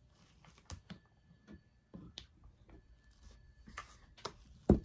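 Quiet handling noises of craft work: scattered light clicks and taps as a hot glue gun and faux flowers are picked up and set down on the table, with one sharper knock near the end.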